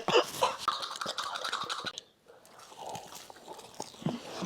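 Close chewing and crunching of crispy fried chicken, with small irregular clicks. It drops out briefly about two seconds in, then carries on more quietly.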